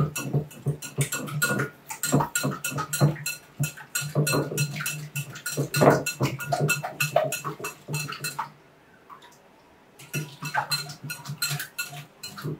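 Wire balloon whisk beating eggs in a glass bowl, its wires clicking and scraping against the glass in quick strokes. It is dragged along the bottom of the bowl to mix the whole eggs and yolk without beating in air, as for a pudding custard. The strokes stop briefly about eight and a half seconds in, then start again.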